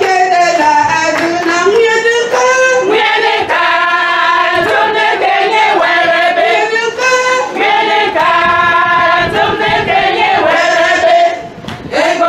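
A group of voices singing together, choir-style, in long held notes, with a brief drop in level near the end.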